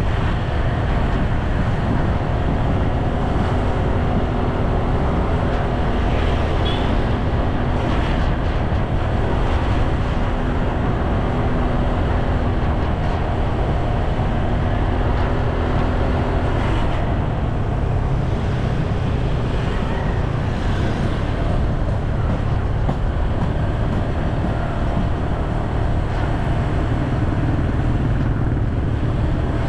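Steady low rumble of wind on the microphone mixed with road and vehicle noise, with a faint engine hum in the first half.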